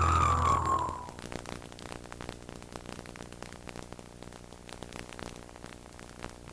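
The tail of a TV show's logo sting, music with a falling-pitch sweep over a low rumble, cuts off about a second in. After that there is only a faint hiss of static with scattered crackles.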